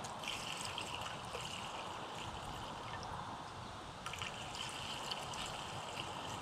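Faint, steady trickle of gasoline running into a plastic jerry can as it is filled, with a hissing note that drops away for a couple of seconds and comes back about four seconds in.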